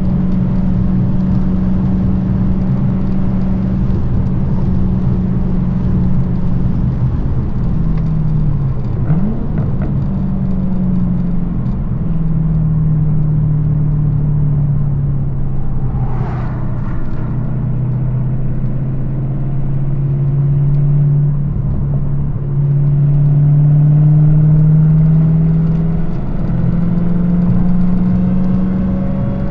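Supercharged Hemi V8 of a Dodge Challenger SRT Hellcat, its active exhaust valves deleted, running under way at steady revs. The engine note dips and recovers about nine seconds in and settles to a lower pitch about twelve seconds in, then climbs slowly and gets louder near the end before stepping back up.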